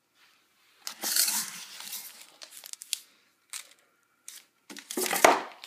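Crinkling and rustling of fireworks packaging being handled, in irregular bursts with a few sharp clicks; the loudest bursts come about a second in and near the end.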